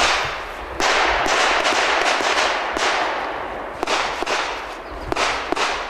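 A string of pistol shots, irregularly spaced about half a second to a second apart, each crack trailing a long echoing tail.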